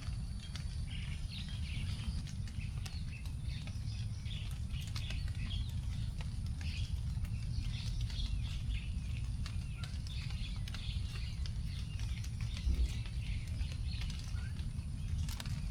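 Forest ambience after rain: scattered water drops ticking onto leaves while small birds chirp throughout, over a steady low rumble.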